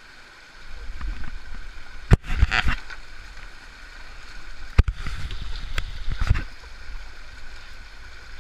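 Small rocky stream running over stones, with scrambling and splashing movements close by and a low rumble from about a second in. Two sharp knocks, about 2 and 5 seconds in, are the loudest sounds.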